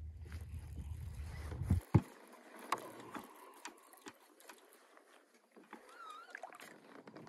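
Handling sounds in a fishing kayak while a hooked fish is played beside it. A low rumble cuts off about two seconds in with a loud knock, followed by scattered clicks and knocks against the hull and gear, and a brief wavering whistle near the end.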